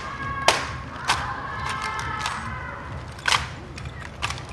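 Honor guard rifle drill: about six sharp slaps and knocks of rifles being handled and struck, spaced irregularly about a second apart.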